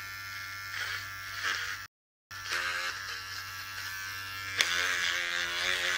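Electric hair clipper buzzing steadily as it is run through long, curly hair, with a short gap of silence about two seconds in.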